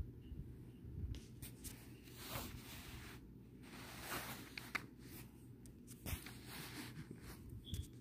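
Handling noise from a hard plastic coin set holder held in the hands close to the microphone: soft scrapes and rubbing, with a few light clicks.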